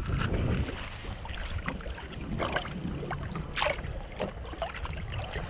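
Wind buffeting the microphone, heaviest in the first half-second, with scattered small knocks and clicks, a sharper one about three and a half seconds in.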